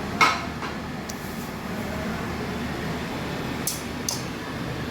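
A sharp metallic clink of a kitchen utensil against cookware near the start, then a few lighter clicks, over a steady background hum.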